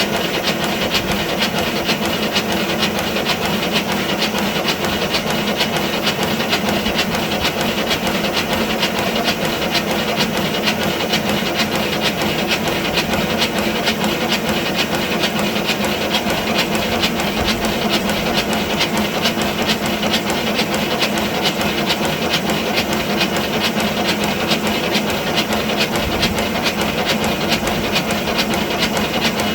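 5-inch gauge live steam model of a BR Class 9F locomotive running on a rolling road, with a rapid, even train of exhaust beats over a steady hiss of steam.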